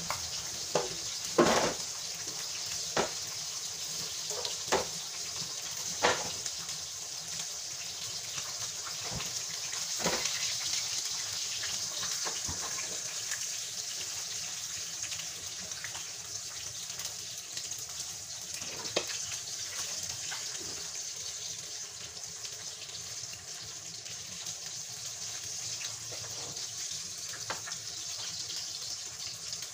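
Milkfish frying in hot oil in a pan: a steady sizzle with sharp pops of spitting oil, several in the first few seconds, then only now and then.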